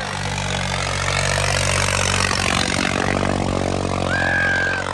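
Tractor diesel engine running steadily under load, with a brief high-pitched tone sounding near the end.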